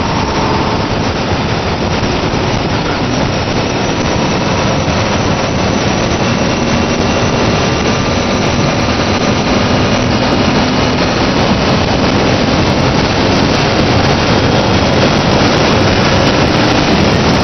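Mazda Xedos 6's 2.0-litre V6 pulling under full acceleration, its revs climbing steadily from about 4,500 toward 6,500 rpm, under heavy wind and road noise. The sound slowly grows louder as speed builds.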